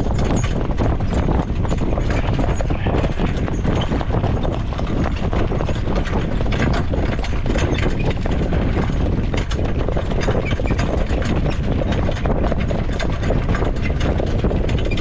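A harness horse's hooves beating steadily on the track in a quick, even clip-clop, over a continuous low rumble.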